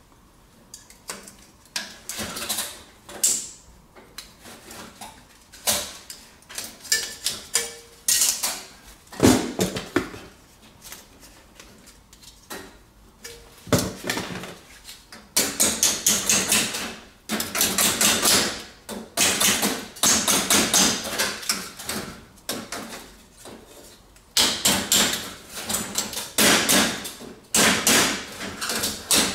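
Rapid scraping strokes of a hand tool on the copper pipe end of a baseboard heater element, in runs of a second or two, heavier and more continuous in the second half.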